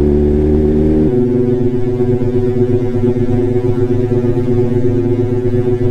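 A held synthesizer chord in background music: a steady, even drone that shifts to a brighter chord about a second in and then holds.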